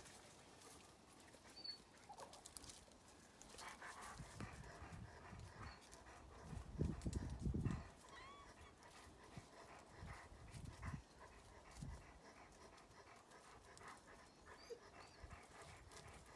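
A dog panting quietly below the tree, with a few low rumbles, the loudest about seven seconds in. There are a couple of faint short chirps near the middle.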